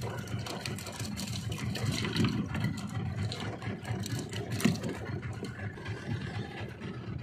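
Small fishing boat's engine running steadily at low speed, with scattered clicks and knocks from handling fishing gear and a sharp knock about four and a half seconds in.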